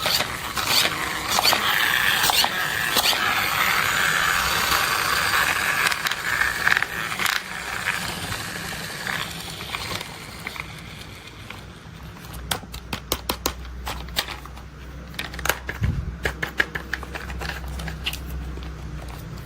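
Toy construction vehicles being played with: a scraping, crackling sound for about the first eight seconds, then a quieter stretch, then a quick run of sharp clicks over a low hum.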